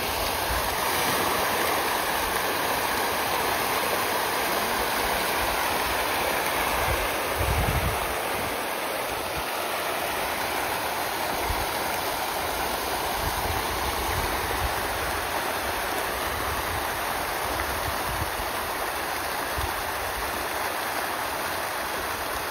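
A large shoal of farmed fish in a feeding frenzy, thrashing and splashing at the pond surface as feed is thrown in. It makes a dense, steady rush of splashing, like rushing water.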